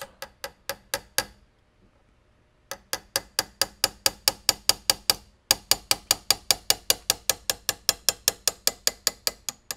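A 2-ounce ball peen hammer tapping steel, driving the rusted-in bottom metal backwards out of a Winchester 1892 receiver after Kroil penetrating oil has soaked in. A few taps, a short pause, then a steady run of about four to five light strikes a second.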